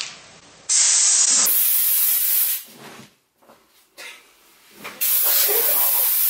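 Aerosol can of Silly String spraying in two long hissing bursts, each about two seconds, with a quieter gap between them.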